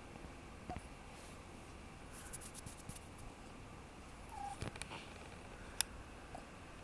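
Papillon puppy giving a few brief, high whimpering squeaks, among soft rustling and light clicks, with one sharp click about two-thirds of the way through.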